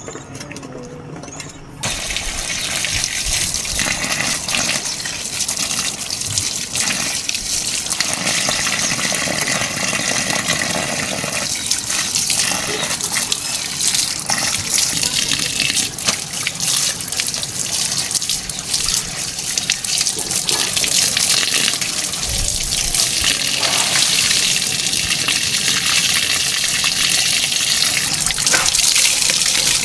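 Water gushing in a steady rush that starts abruptly about two seconds in.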